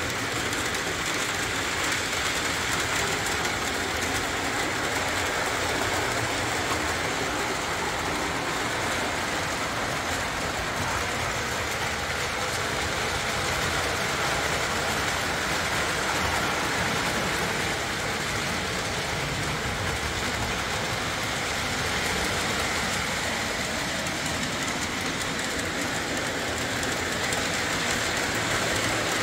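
Lionel O-27 Alco diesel model train running on three-rail track: a steady rolling hiss of motor and wheels, with fine clicking as it goes over the rail joints.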